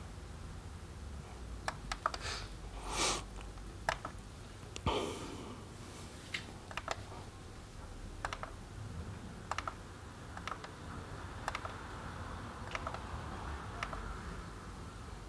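Laptop keys being typed, sparse irregular clicks, with two short louder noises about three and five seconds in, over a low steady room hum.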